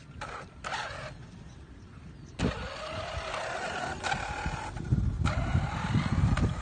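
Electric motor whine of an XRAY 1/8-scale electric RC buggy, gliding up and down in pitch as it speeds up and slows. It starts with a sharp click about two and a half seconds in, and a low rumble grows louder in the second half.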